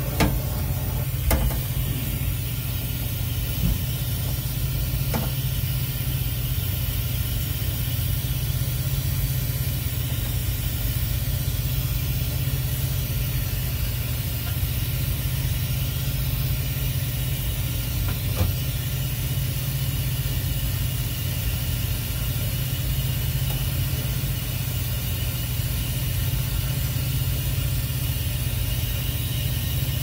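Brazing torch flame giving a steady low roar while a copper refrigerant line joint is heated and brazed, with a few faint ticks.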